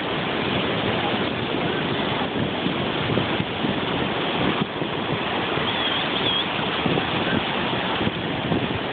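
Ocean surf washing onto the beach and wind buffeting the phone's microphone: a steady rushing noise that does not let up.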